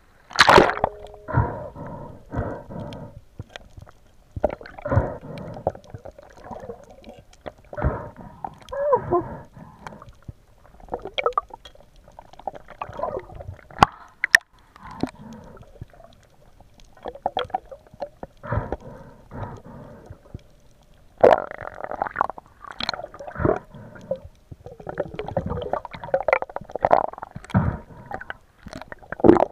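Seawater sloshing and gurgling around a spearfisher's action camera at the surface and just under it, in irregular bursts, with a couple of sharp clicks about halfway through.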